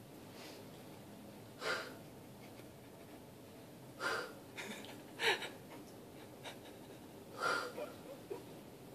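A person snorting sharply through a stuffed-up nose, four short forceful blasts a second or two apart.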